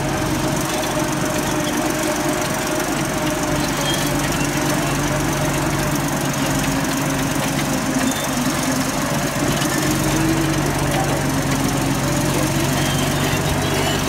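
Crawler bulldozer's diesel engine running steadily under load as the blade pushes a mound of soil.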